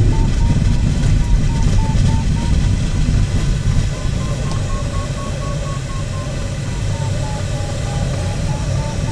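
Cockpit of an LS4 glider during an aerotow takeoff roll: a steady low rumble of the wheel on grass and rushing air. Over it the variometer's audio beeps in short repeated tones, rising in pitch about four seconds in and falling back near the end.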